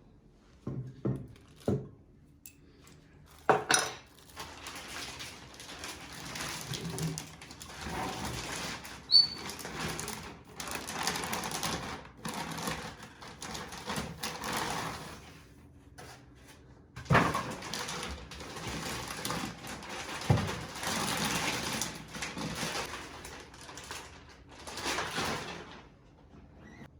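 Packaging and parts being handled during unboxing: repeated rustling and scraping of wrapping, broken by several knocks and clunks. The loudest knocks come about three and a half seconds in and again about seventeen and twenty seconds in.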